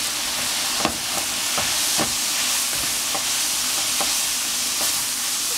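Stir-fry of cabbage and pork sizzling steadily in a frying pan, with a wooden spatula tapping and scraping the pan at irregular intervals as the food is turned.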